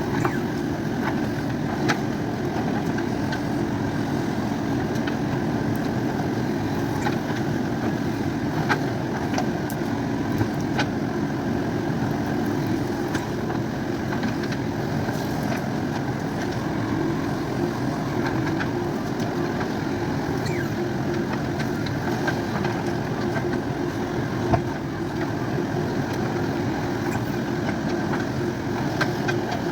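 Diesel engine of a JCB 3DX backhoe loader running steadily, with a few sharp knocks now and then.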